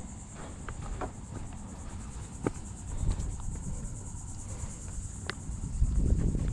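Steady high-pitched insect trilling, cricket-like, over a low wind rumble on the microphone that swells near the end, with a few light clicks and knocks scattered through.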